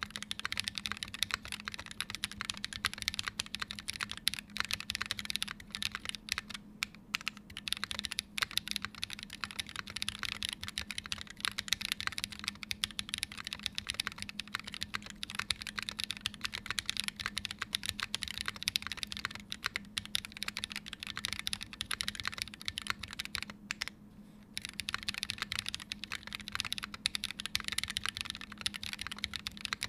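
Continuous fast typing on a Wilba.Tech Thermal mechanical keyboard with lubed and filmed Holy Panda tactile switches, GMK keycaps and an aluminium plate: a dense run of keystroke clacks, with a short pause about two-thirds of the way in.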